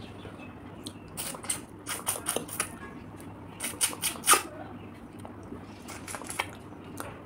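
Close-miked mouth sounds of eating fried river snails: wet sucking slurps and smacks as the meat is drawn from the shells, coming in short clusters, the loudest about four seconds in.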